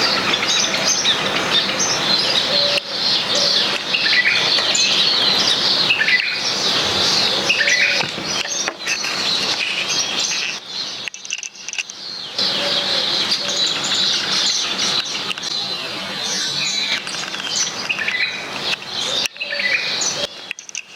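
A flock of small garden birds chirping, many short overlapping calls and trills at once, easing off briefly a little past the middle before picking up again.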